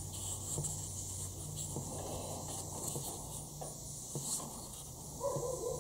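Steady high-pitched chirring of insects, with faint clicks and soft handling sounds as a paper cartridge oil filter is turned over in the hands.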